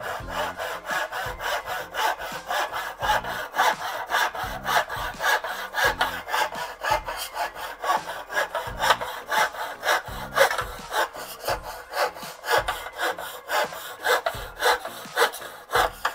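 Hand saw cutting through a wooden dowel rod in a plastic miter box: even back-and-forth rasping strokes, two or three a second.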